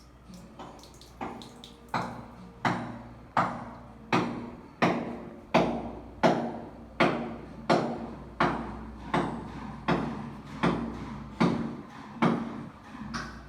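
A steady series of sharp knocks, about one and a half a second, each ringing briefly; they build up over the first few seconds and then ease off slightly.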